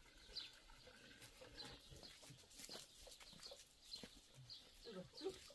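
Faint farmyard birds: short high chirps repeating every half second or so, with a few low clucks, typical of chickens, near the end.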